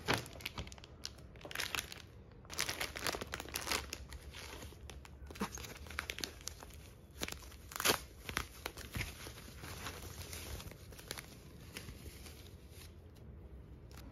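Clear plastic snack packaging crinkling and rustling as it is handled by hand: irregular crackles, some sharp, dying down near the end.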